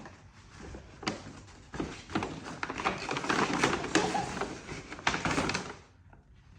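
Gift packaging being unwrapped: a dense run of crinkling and crackling, loudest in the middle, dying away near the end.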